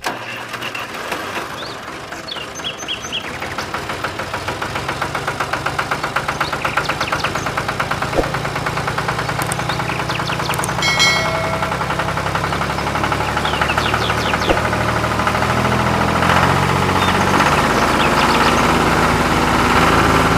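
A small motor running steadily with a rapid, even buzzing pulse that grows a little louder after the first few seconds, with a few bird chirps over it.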